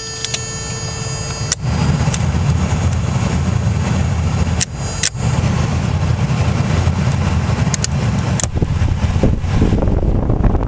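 Toyota 4Runner running with its newly replaced heater blower motor switched on. A loud, steady low rumble comes in suddenly about one and a half seconds in and holds steady, with a brief dip about halfway through and a few light clicks. The new blower runs smoothly without vibration.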